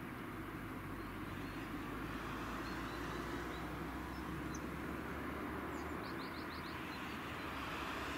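ROPA harvester's diesel engine and digging gear running steadily as it works across the field, a continuous drone with a low hum. A bird chirps faintly a few times, with a quick run of four chirps about six seconds in.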